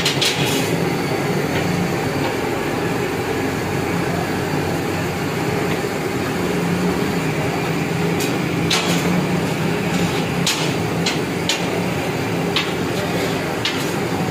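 A steady low hum and hiss, with several sharp clinks of a knife against a steel platter as fried fish is cut, most of them from about eight seconds in.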